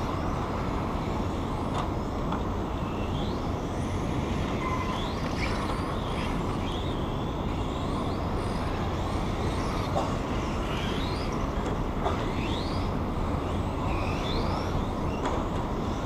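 Electric RC cars' motors whining, short rising whines about once a second or so as the cars accelerate out of the turns, over a steady rushing background noise.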